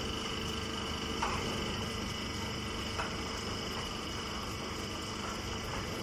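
Chopped-straw baling line machinery running steadily: an even mechanical hum with a high steady whine, and two light knocks, one about a second in and one near the middle.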